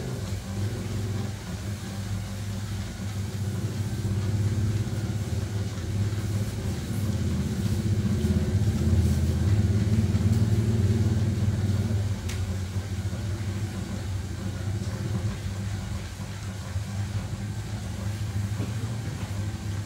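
Home-built popcorn machine running: a steady low hum from its gas burner and stirrer motor, which grows louder for several seconds in the middle.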